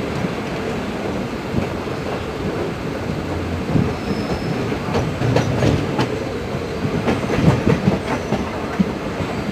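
Gonda–Gorakhpur DEMU train running, heard from an open coach door: a steady rumble of wheels on rail. From about five seconds in, sharp clacks come through as the wheels cross rail joints and the points at the station approach.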